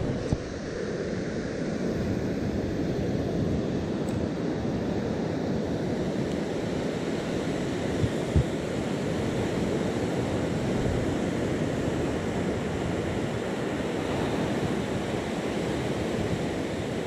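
Surf breaking on a sandy beach, with wind buffeting the microphone. Two brief knocks, one right at the start and one about halfway through.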